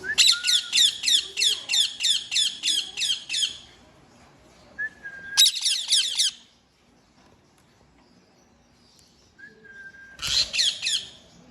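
Indian ringneck parakeet calling in a fast run of sharp, repeated screeches, about four a second for three and a half seconds, then two shorter bursts about five and ten seconds in.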